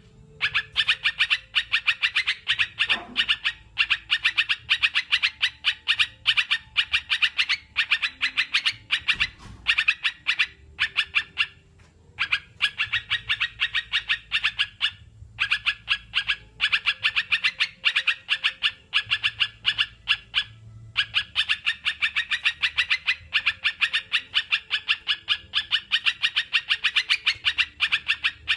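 Crucukan (yellow-vented bulbul) singing in a rapid, continuous stream of high, bubbly chirps, broken by a few short pauses.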